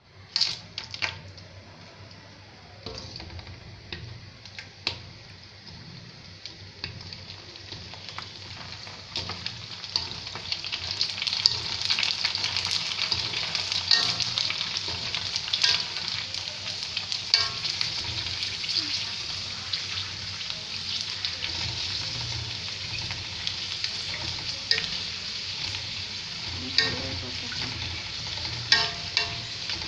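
Fuchka dough rounds deep-frying in hot oil in a wok: a steady sizzle that builds over the first ten seconds or so as more rounds go in, then holds. Scattered sharp clicks and taps sound through it.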